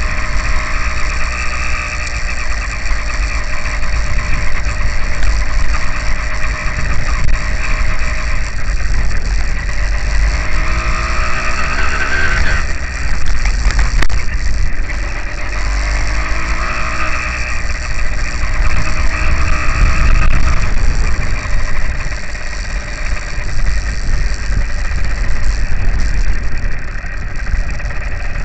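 Small two-stroke engine of an F80 kit motorized bicycle running under way, its pitch rising and falling as the throttle is opened and closed, with a climb that drops away sharply about twelve seconds in. Low wind rumble on the microphone runs under it.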